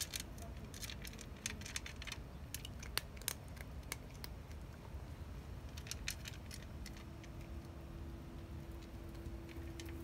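Cat chewing dry kibble from a clear plastic dish: irregular sharp crunches, thickest in the first few seconds, with a few more around the middle and near the end. A faint steady hum comes in about seven seconds in.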